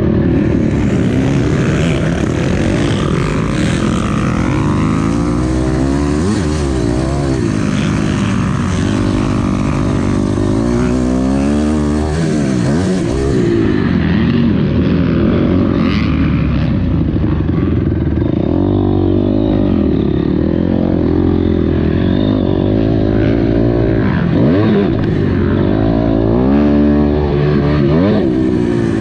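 Honda CRF250R four-stroke motocross bike engine being ridden hard. Its pitch climbs and drops over and over as the throttle is opened and shut.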